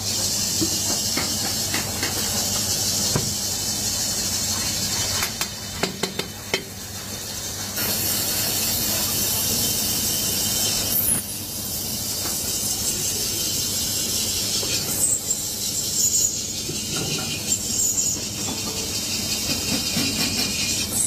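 A large aluminium vessel spinning on a lathe while a hand-held cutting tool shaves metal from its inside: a steady hiss over the low hum of the lathe, with a few short clicks.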